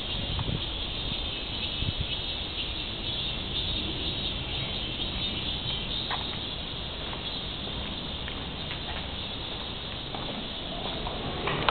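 Steady high-pitched insect chorus over a low rumble, with a few light clicks near the end.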